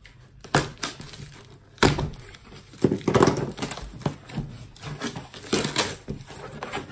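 A cardboard parcel being handled and opened by hand: several sharp knocks and rips of the packaging, with rustling between them.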